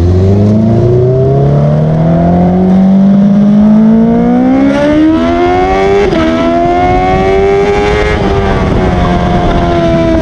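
Honda CBR motorcycle engine pulling under acceleration, its pitch rising steadily for about eight seconds with a brief hitch about six seconds in, then falling as the throttle eases off near the end.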